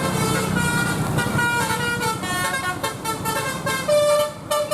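Bus 'telolet basuri' musical air horn playing a quick melody of stepped notes, over a low engine rumble.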